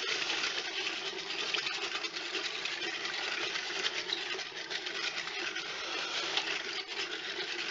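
Wire whisk beating eggs and oil by hand in a bowl: a fast, steady clatter of the tines against the bowl through the liquid.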